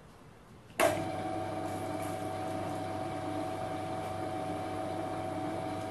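Metal lathe switched on about a second in, then running steadily at its slowest spindle speed: an even motor and gear hum with a couple of steady tones.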